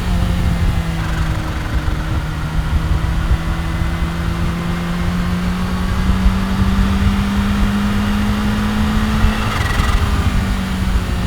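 The supercharged inline-four engine of a 2015 Kawasaki Ninja H2 pulls steadily while riding, its pitch slowly rising. Near the end the pitch drops and settles lower, all over a constant low rumble.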